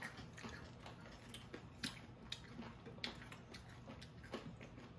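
Quiet eating at a table: irregular small clicks of chopsticks against dishes and food containers, with soft chewing.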